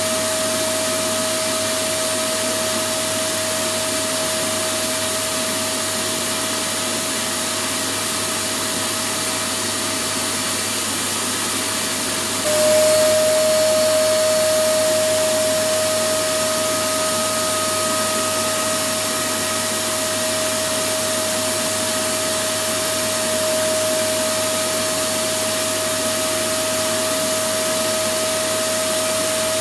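Electric vacuum cleaner running continuously: a steady rushing noise with a constant motor whine. About halfway through, the whine drops slightly in pitch and the sound gets a little louder, then settles back.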